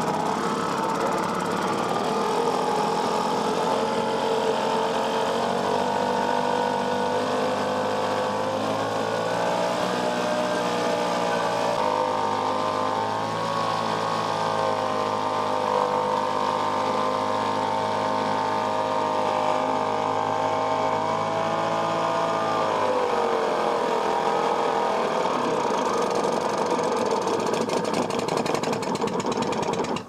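British Seagull two-stroke outboard motor running in a bin of water, its engine speed shifting a few times as the throttle is worked and dropping about three-quarters of the way through.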